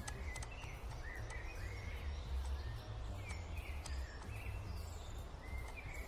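Background soundtrack of birds chirping, short calls every second or so, over a steady low rumble.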